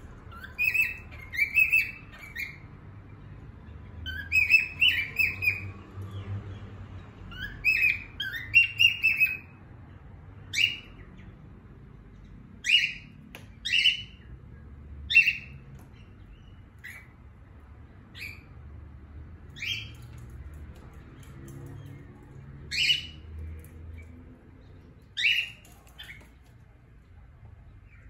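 Lutino cockatiel singing: three quick warbling phrases in the first nine seconds or so, then single short upswept chirps every second or two.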